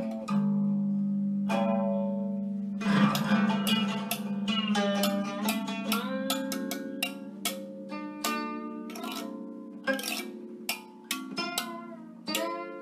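Guqin (seven-string Chinese zither) played in a slow improvisation: plucked notes, some sliding in pitch as the stopping hand glides along the string, over low notes left ringing underneath.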